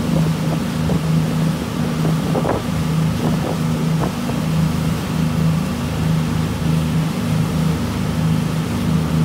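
Motorboat running at speed: a steady low engine drone under the rushing of the churned wake, with wind on the microphone.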